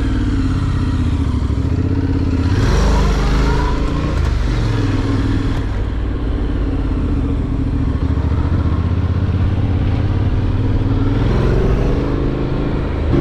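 Honda NC750X's parallel-twin engine running on the move, its pitch rising and falling with the throttle, with a louder rush of noise about two and a half seconds in.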